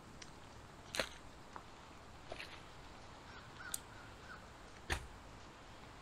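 Chunks of split firewood being set down into a sand fire pit, with two sharp knocks of wood on wood, about a second in and again near five seconds, and a few softer clicks between.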